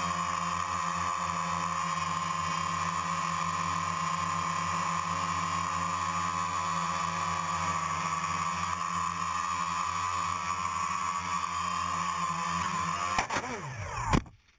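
DJI Phantom quadcopter's propellers and motors running steadily in a hover. About 13 seconds in there is a sharp strike as it hits the flag pole, and the motor pitch falls as it tumbles. A loud thump follows as it lands in the snow, and then the sound cuts off.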